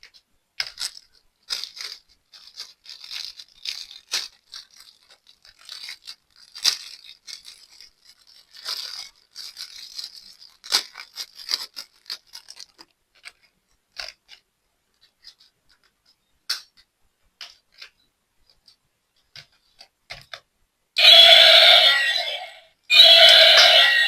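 Scattered light clicks, crinkles and scrapes of a plastic toy and its packaging being handled. About 21 seconds in, the toy dinosaur's electronic sound effect plays twice, each time a loud call lasting just under two seconds.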